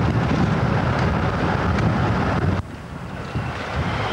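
Class 47 diesel locomotive's Sulzer engine running as it moves past, under heavy wind rumble on the camcorder microphone. The rumble drops sharply about two-thirds of the way through.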